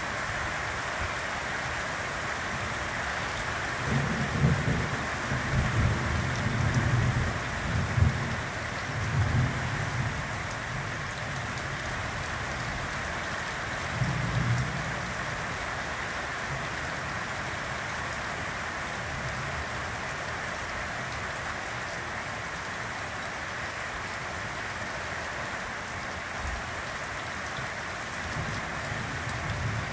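Rain falling steadily, with low rumbles of thunder rolling from about four to ten seconds in and again around fourteen seconds, and fainter rumbles later.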